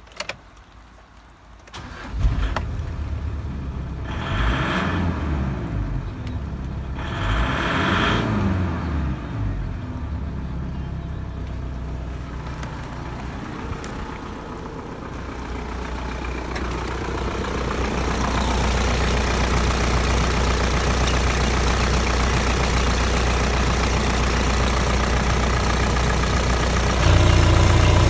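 Mitsubishi 4M41 3.2-litre four-cylinder turbodiesel starting about two seconds in, revved up and back down twice, then settling to a steady idle. The idle grows louder later, and near the end, with the oil filler cap off, it becomes louder and deeper.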